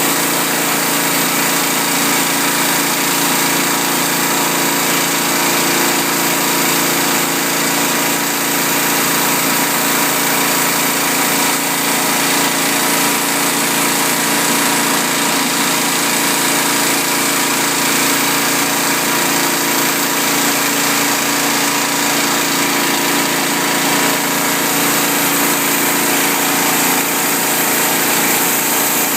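A 250-bar pressure washer running steadily: the hum of its motor and pump under the dense hiss of high-pressure water jets from a Whirlaway 18 rotary flat surface cleaner scouring patio slabs.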